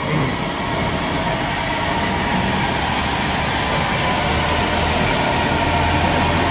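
Steady machinery noise of a working pipe fabrication hall: a continuous mechanical rumble with a low drone that grows a little stronger about four seconds in.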